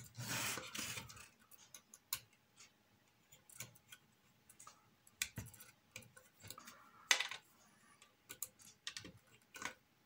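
Light, scattered clicks and rubbing from tightening small screws in a plastic Peco N gauge model railway turntable with a hand tool and shifting the parts by hand. A louder rustle of handling comes at the start, and a faint steady hum runs underneath.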